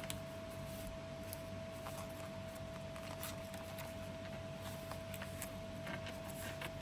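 Faint rustling and light ticks of paper journal pages and inserts being handled and turned, over a steady faint hum.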